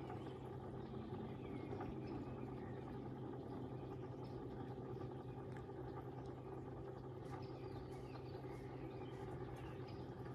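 Steady low hum of the koi pond's pump and filtration system running, with faint bird chirps above it.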